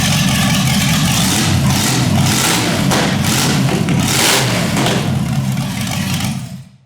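Rebuilt Rover 4.6-litre V8 running loudly on open exhaust manifolds, then shut off abruptly near the end.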